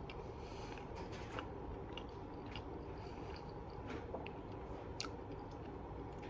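A person chewing a mouthful of food close to the microphone, with soft, irregular mouth clicks and smacks.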